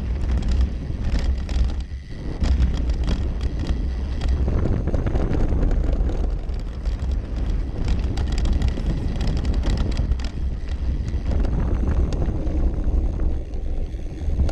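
Trek Session downhill mountain bike rolling and being pedalled on a dirt path, heard from a camera mounted on its frame: tyres on dirt, with frequent clicks and rattles from the chain and frame. A steady low rumble of wind on the microphone sits under it all.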